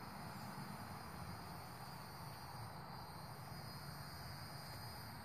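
Steady high-pitched insect song, unbroken, over a faint low background rumble.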